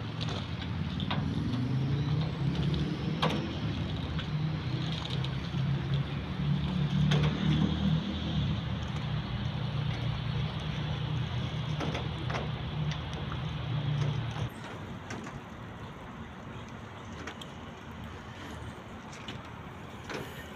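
A large engine running steadily with a low hum, which stops abruptly about fourteen seconds in, leaving a quieter steady background.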